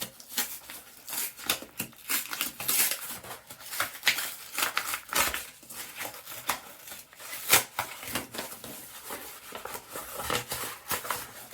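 A cardboard parcel being opened by hand: irregular scratching, tearing and crinkling of tape, cardboard and packing material.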